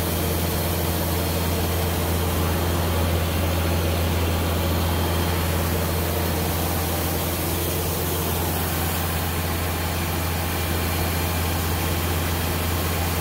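Heavy diesel engine running steadily at a constant speed: a deep, even drone with no change in pitch, over a wash of steady noise.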